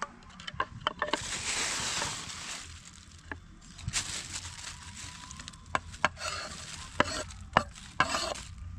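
A steel cleaver scraping and knocking against a wooden cutting board, with about a dozen sharp taps, as chopped green pepper scraps are knocked off into a plastic bag. The plastic bag crinkles between the taps.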